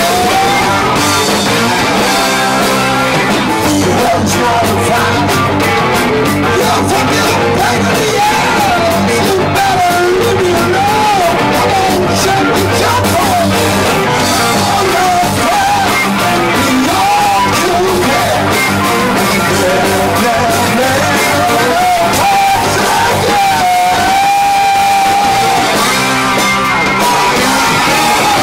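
Live rock band playing loudly: electric guitar, bass guitar and drum kit, with a voice singing over them.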